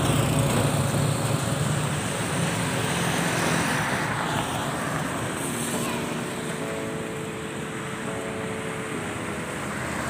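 Engine and road noise of a moving truck, with road traffic passing alongside.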